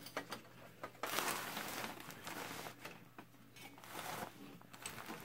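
Handling noise: irregular rustling and small clicks as the camera is moved around, over a faint steady low hum.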